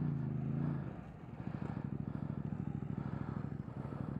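Motorcycle engine held at raised revs, dropping back about a second in and then running steadily at low revs with an even, rapid pulsing beat.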